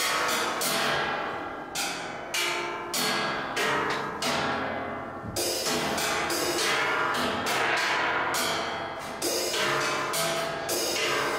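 Live ensemble music: sustained pitched instruments with repeated percussion strikes that ring and fade, coming in clusters every half second or so, with a longer ringing stretch near the middle.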